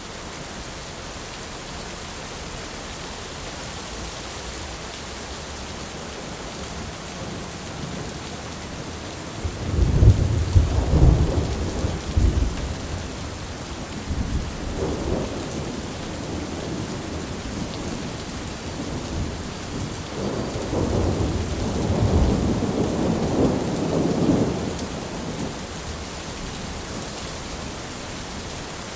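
Thunderstorm: steady heavy rain with a loud crack and roll of thunder about a third of the way in, then a second long rumble of thunder a little past the middle, fading back to rain near the end.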